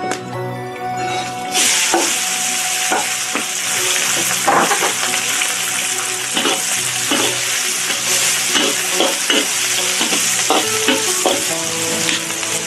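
Chopped green vegetables hit hot oil in a black iron wok about a second and a half in, then sizzle steadily as they are stir-fried. A metal spatula scrapes and knocks against the wok all the while.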